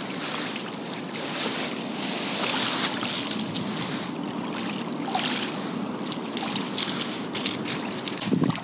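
Small waves washing onto a pebble river shore, a steady rushing wash, with a brief thump near the end.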